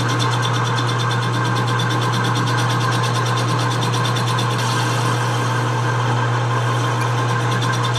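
Metal lathe running steadily with a boring bar cutting inside a workpiece spinning in the four-jaw chuck, boring the bore out to clean new metal. Mainly a steady low motor hum.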